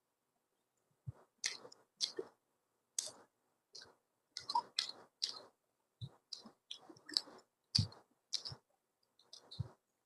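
Close-up mouth sounds of a person eating: chewing with short clicks and smacks, about two a second, separated by silent gaps.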